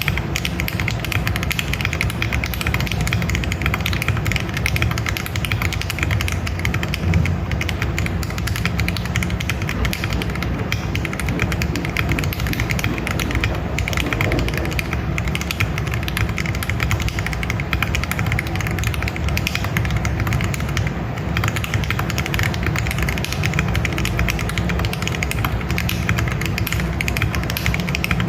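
Fast continuous typing on a mechanical keyboard with Akko Clear Black ASA-profile double-shot keycaps, a dense run of key clacks. The sound is close to other ASA sets but less ringing and a little more solid.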